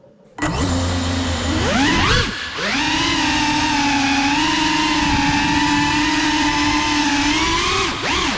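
Small FPV quadcopter's electric motors and propellers spinning up suddenly for an indoor takeoff, a buzzing whine that swoops up in pitch then settles into a steady hum, with a brief dip in pitch near the end.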